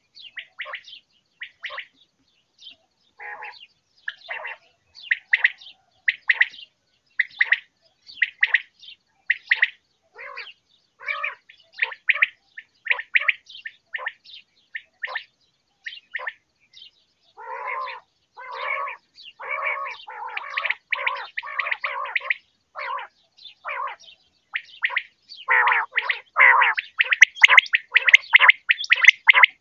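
Quail calling: a long run of short, sharp chirping notes, a few per second. The calls grow busier partway through and are loudest and most crowded over the last few seconds.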